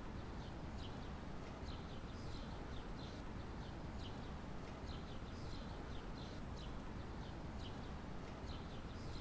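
Quiet birdsong ambience: small birds giving short, high chirps again and again, over a low steady rumble of background noise.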